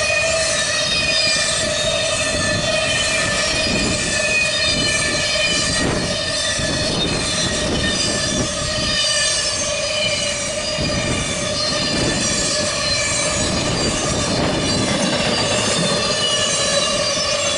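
Norfolk Southern intermodal freight train rolling past at speed: a steady rumble of wheels on rail with a recurring clatter, under a steady high ringing tone from the wheels and rail.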